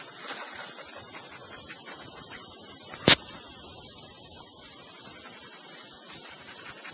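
Steady high-pitched insect chorus, with a single sharp snap about three seconds in.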